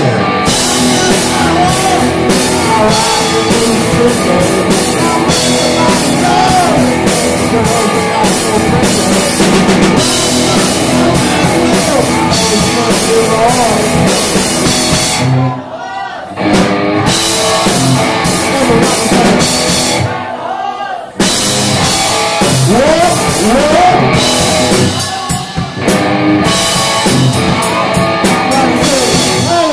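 Live rock band playing: a man singing over electric guitar and drum kit. The band stops for a moment twice, once just past the middle and once about two-thirds of the way through.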